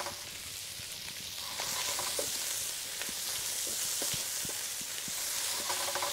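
Chicken thigh strips, red onion and capsicum sizzling in olive oil in a frying pan, with scattered clicks and scrapes from a wooden spatula stirring them.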